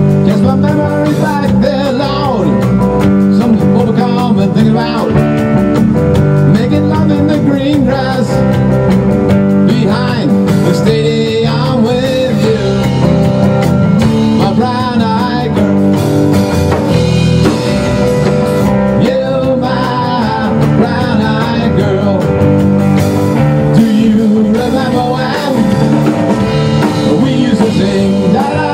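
Rock band playing live: electric guitars over a drum kit, loud and continuous.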